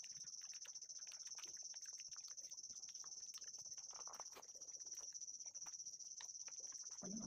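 Steady high-pitched chirring of night insects, with small crackling and rustling sounds as ripe jackfruit bulbs are torn by hand from the stringy core of the fruit.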